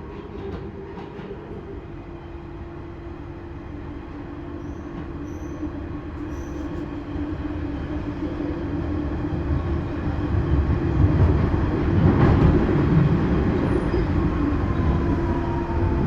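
Central line Underground train running on the westbound track, its noise building steadily with speed over a held hum, with a few knocks from the track about twelve seconds in and a slowly falling whine near the end.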